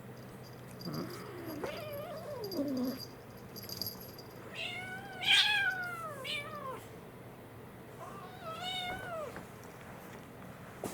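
Kitten meowing. A low wavering call comes about a second in, then a loud meow that rises and falls around five seconds in with a short one right after, and another meow near the end.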